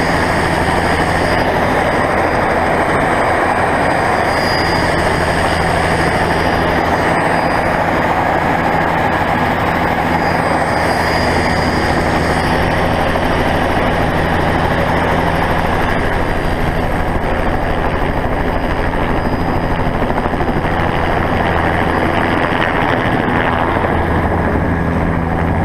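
Helicopter in flight: steady engine and rotor noise with a constant low hum.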